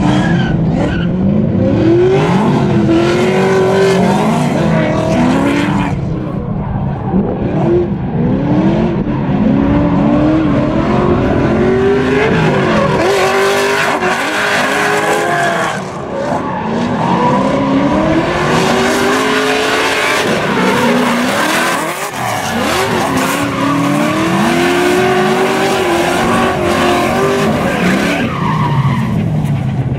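Two drift cars in a tandem run: their engines rev hard in repeated rising sweeps as the drivers work the throttle, over the screech and hiss of tyres spinning and smoking sideways.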